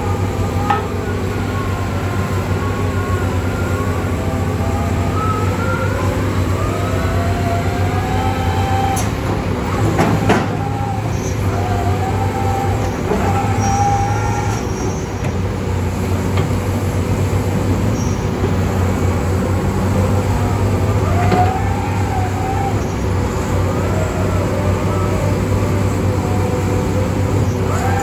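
Heavy diesel construction machinery running steadily at work, with a hydraulic whine rising and falling above the engine drone and a sharp metallic clank about ten seconds in.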